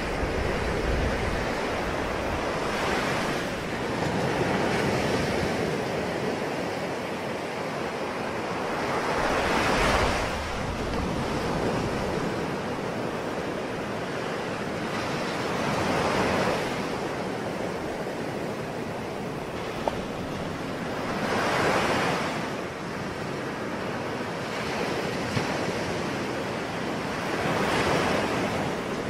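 Ocean surf: waves breaking and washing in, swelling up about every six seconds over a steady hiss of water.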